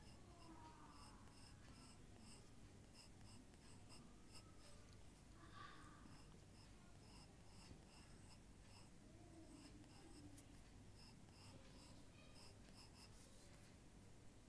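Faint scratching of drawing strokes on paper, in many short irregular strokes.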